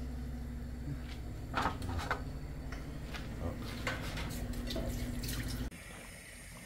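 Creamy sauce with chicken pieces simmering in a frying pan, with irregular soft pops of bubbles over a steady low hum. The sound cuts off suddenly near the end.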